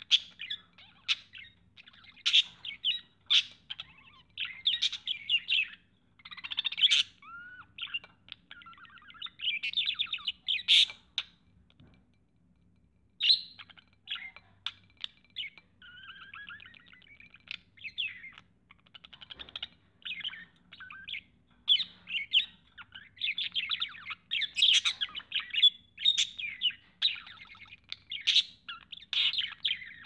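Male budgerigar warbling and chattering at its own reflection in a mirror: a fast, busy run of chirps, clicks and short squawks, with a brief pause about halfway through.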